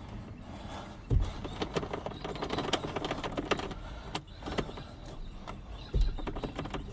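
Metal clicks and rattles of a flat key being wiggled in a worn ignition lock barrel, with two dull thumps, about a second in and near the end.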